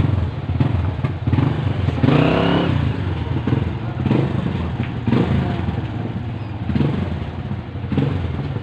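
An engine running steadily, with short knocks now and then.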